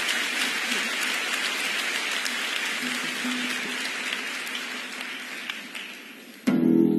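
Concert audience applauding, the clapping slowly dying away. Near the end, the band's music starts suddenly with plucked strings.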